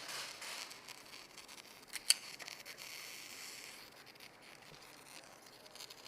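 A sharp click about two seconds in, just after a weaker one, over faint hiss.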